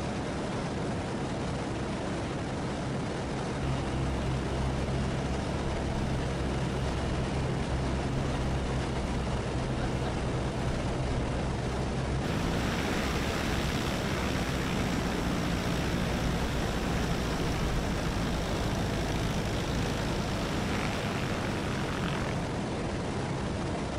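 Engine and propeller of a Just Aircraft SuperSTOL XL running steadily, heard from aboard in flight. About halfway through it changes abruptly to a STOL bush plane's engine and propeller heard from outside, a higher, rushing sound as the plane rolls across the grass.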